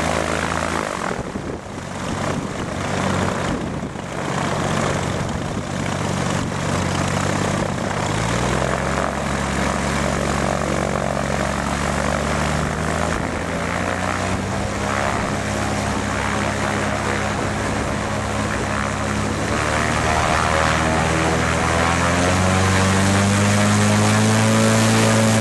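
Chevrolet automotive engine on an aircraft engine test stand, running and turning a propeller just after start-up. Its pitch steps up as it is throttled up: about a third of the way in, again near halfway, and higher still over the last few seconds.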